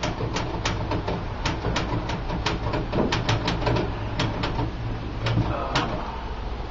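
LC Smith manual typewriter being typed on: sharp, separate key strikes at an uneven pace, about three a second, as a test sentence is typed out letter by letter.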